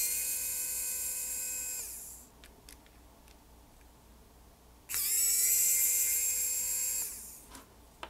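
Pen-style electric precision screwdriver running in two short spells, a high whine that rises as the bit spins up and falls as it stops, backing small Phillips screws out of a drone's main module. A few small clicks in the pause between.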